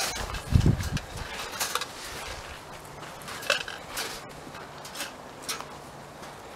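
Wire cage live traps rattling and clinking as they are carried and set down on the ground. A dull thump in the first second is followed by scattered short metallic clicks.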